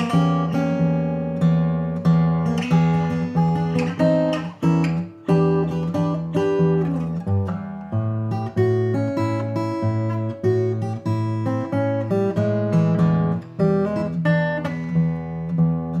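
Taylor 322ce 12-fret mahogany-top acoustic guitar played solo: picked notes ring over low bass notes that change at a steady pulse.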